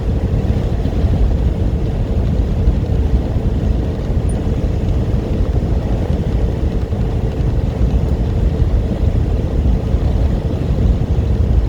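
Semi truck cab at highway speed: a steady low engine and road rumble with a constant droning tone.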